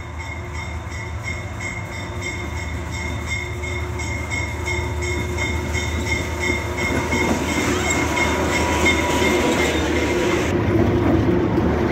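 GE U20C diesel-electric locomotives at the head of a loaded grain train approaching and drawing alongside: a steady engine rumble with a held whine, growing steadily louder. The sound changes about ten seconds in as the lead locomotives come alongside.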